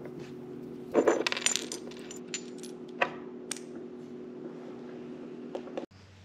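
Light metallic clinks and clicks of small screws and a metal phone-mount clamp being handled as the screws are taken out, a quick cluster about a second in and a few single clinks after.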